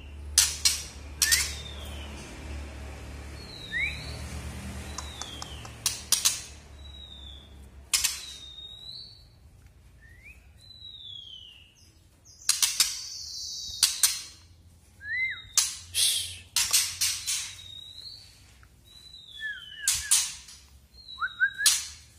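Young male white-rumped shama giving its kretekan call: many sharp, loud clicks, some in quick pairs, mixed with short down-slurred whistled notes. This is the rough practice song of a bird still learning to sing.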